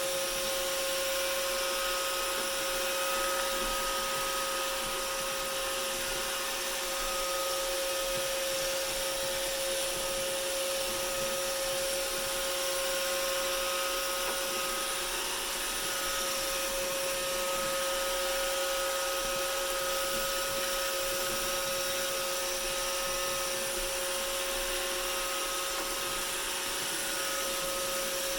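Roomba robot vacuum running while it cleans: a steady motor hum and suction hiss, with a fainter higher whine that fades in and out.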